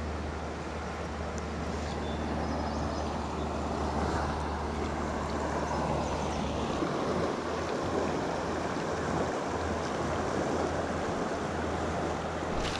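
Steady rush of a shallow, fast-flowing river running over riffles, close to the microphone.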